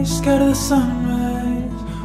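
Soft background music with guitar and a slow, held melody line.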